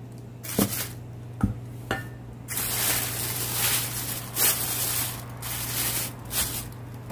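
A few knocks of a wooden spatula on a stainless steel bowl, then thin plastic food-bag film crinkling loudly in surges as it is folded over and pressed down.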